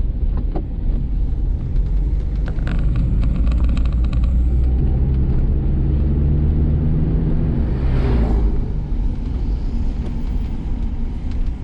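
Car driving along: a steady engine and road rumble, with the engine note climbing and easing off through the middle. A brief whoosh comes about eight seconds in.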